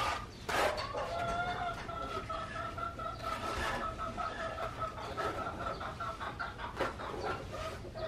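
A chicken clucking in a long, steady run of calls. A sharp scrape of a steel trowel on wet cement render comes about half a second in and again near the end.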